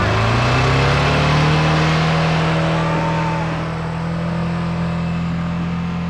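A motor vehicle's engine revving up over the first second, then running steadily at high revs.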